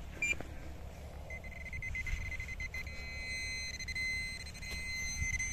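Handheld metal-detecting pinpointer beeping, starting about a second in as rapid pulses that run together into a continuous high tone as it is worked in the dug hole, signalling metal close to the probe tip.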